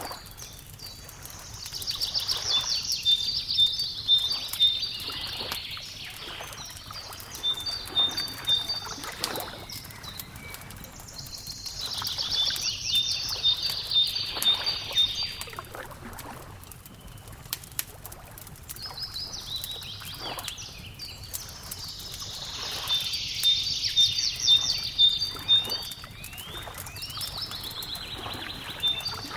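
A songbird singing in three bouts of quick repeated high notes and trills, each a few seconds long, over a wood fire crackling steadily with sharp scattered pops.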